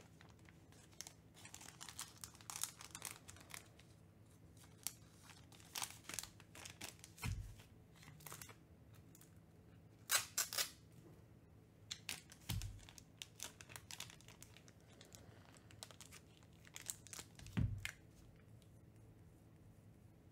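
Foil trading-card pack wrappers being torn open and crinkled, with cards rustling in the hands. There are three dull thumps about five seconds apart, like stacks of cards being set down on the table.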